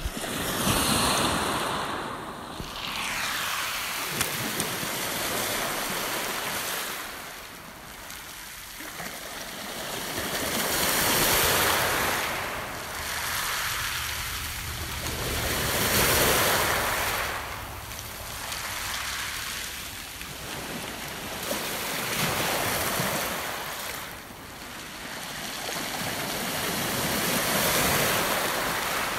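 Lake Superior waves breaking and washing up a pebble beach, the surf swelling and ebbing every five seconds or so.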